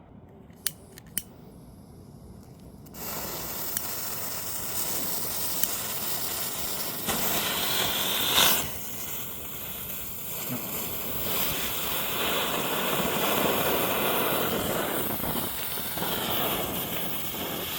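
Two sharp clicks, then a lit firework novelty catches about three seconds in and hisses loudly and steadily as it burns, with a brief louder surge partway through.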